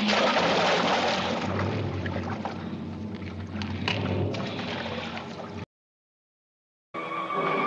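Water splashing and churning from a struggle with a crocodile in a pool, cut off abruptly about five and a half seconds in. After a second of silence, music starts near the end.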